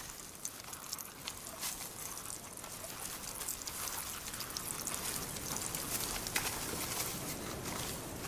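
Male cheetahs spraying urine onto a dead tree stump to scent-mark it: liquid spattering and trickling, with many short rustles and clicks.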